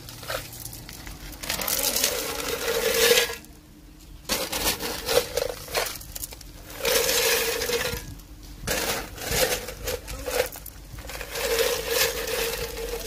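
Crushed-stone coarse aggregate poured from a metal scoop into a steel measuring bucket, clattering and rattling. It comes in four or five pours of a second or two each, with short pauses between, as the bucket is filled loose for a bulk density test.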